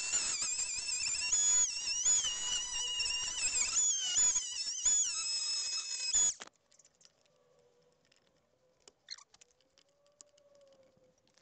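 Einhell power tool cutting wood, a high whine that drops in pitch and picks back up several times as it labours through a knot. It stops suddenly about six seconds in, leaving near silence with a few faint ticks.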